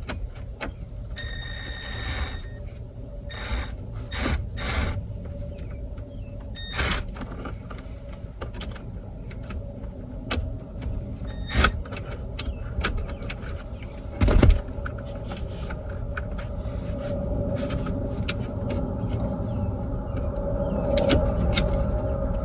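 Scattered clicks and knocks of plastic steering-column parts and a multifunction switch being worked and lined up by hand, with one louder knock about two-thirds of the way through, over a steady low rumble.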